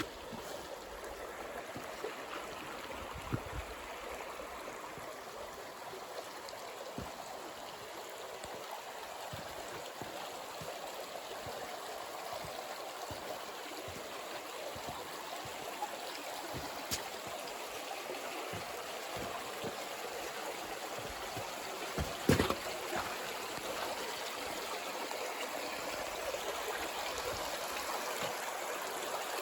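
Creek water flowing steadily over rocks, an even rushing noise, with a few brief knocks, the loudest about 22 seconds in.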